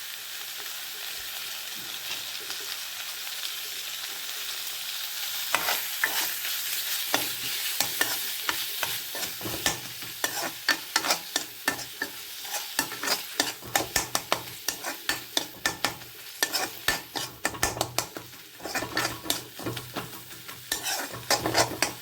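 Fish with bamboo shoots sizzling in a frying pan. From about five seconds in, a spatula stirs and scrapes against the pan in quick, repeated strokes over the sizzle.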